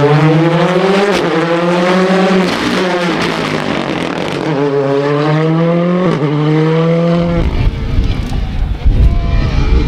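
Ford Fiesta rally car engine accelerating hard uphill, its note climbing and dropping back at upshifts about a second in and again about six seconds in. About seven seconds in the engine sound cuts off and gives way to wind buffeting the microphone.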